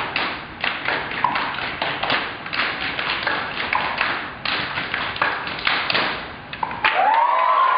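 A group of people clapping and slapping their hands in a quick, uneven patter of sharp claps, with a voice or two calling out briefly. Near the end the clapping gives way to applause and a rising cheer.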